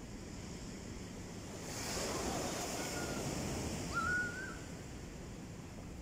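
Gentle surf on a sandy beach: a small wave washes up and hisses over the sand from about two seconds in, fading after four seconds. A child gives a short high call about four seconds in.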